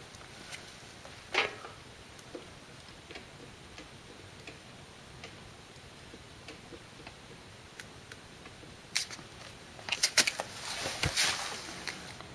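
Small metal clicks and taps of brake pads being worked into a motorcycle's disc brake caliper: one sharp click early on, scattered faint ticks, then a quick run of louder clicks about ten seconds in.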